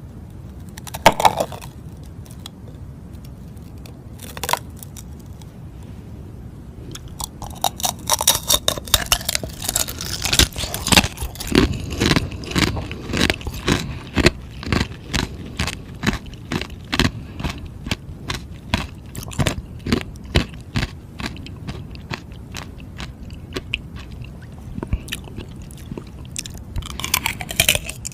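Close-up crunching and chewing of frozen ice. A few separate bites come in the first seconds, then from about seven seconds in a steady run of crunches, roughly two a second.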